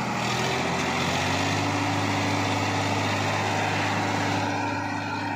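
Sonalika DI 745 tractor's diesel engine pulling hard under load, hauling a trolley full of soil up a steep sandy slope in a low gear. Its steady note rises a little in the first second or so and eases slightly near the end.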